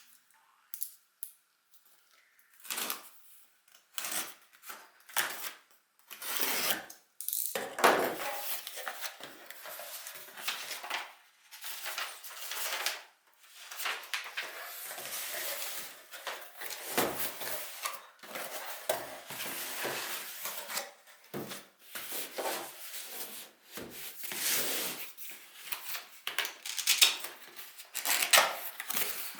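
A boxed product being unpacked by hand: irregular rustling and scraping of packaging with small knocks and clicks, starting about two seconds in.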